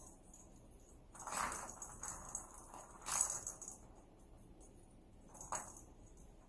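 German Shepherd gnawing a green plastic toy. The toy crackles in three bouts: a longer one about a second in, a shorter one around three seconds, and a brief one near the end.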